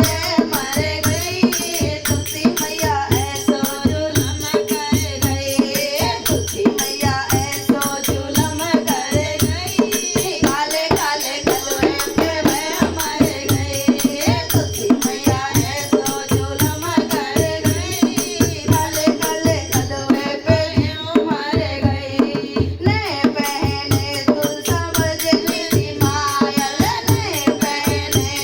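Women singing a Hindi devotional bhajan to a steady hand-drum beat, with a jingling rattle-type percussion.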